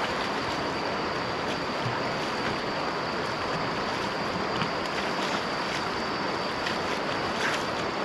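River water flowing and lapping against the rocks at the bank. From about halfway through, small splashes from a swimmer's arm strokes come through.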